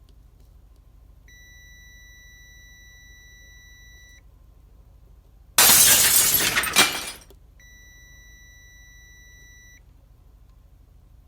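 A long steady high-pitched beep, then a loud sudden crash-like noise that fades out over about a second and a half, then a second steady beep.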